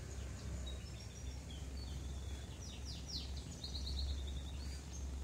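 Small birds calling in the trees: scattered short high chirps, with a quick run of repeated falling notes about three seconds in, over a low steady rumble.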